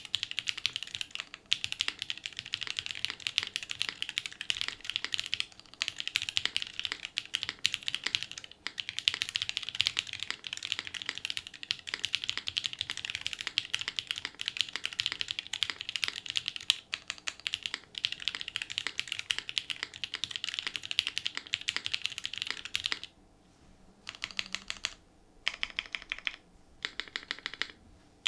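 Fast, continuous typing on an ai03 Vega mechanical keyboard with a full polycarbonate plate, lubed SP-Star Sacramento linear switches and GMK keycaps, a dense run of keystrokes. Near the end the typing breaks into pauses with short bursts of keys.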